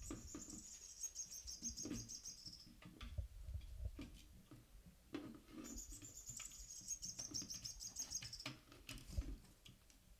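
A kitten toy bird in a small cage chirping in two bursts of rapid high twittering about three seconds each, the second starting about halfway. Between and under them come taps, knocks and low thumps as a kitten paws at the cage, trying to pull the bird out.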